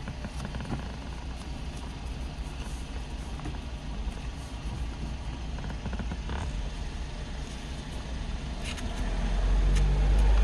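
Car engine running steadily with a low rumble, a few light clicks over it, and the rumble swelling louder near the end.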